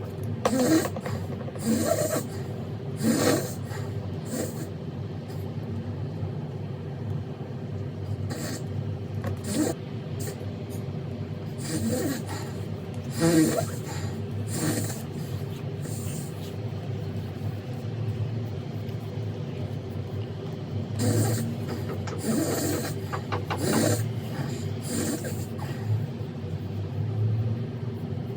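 A man snoring in his sleep: short snores come one after another in clusters with quieter gaps between, over a steady low hum.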